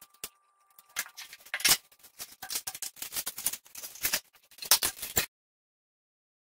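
Kitchen utensils clinking and knocking against each other and the wall rack as they are taken down, a run of irregular clicks and clatters that cuts off suddenly about five seconds in.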